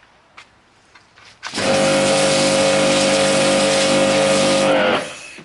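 Karcher K7 pressure washer starting abruptly, running steadily with a high hum over a hiss for about three seconds, then cutting off.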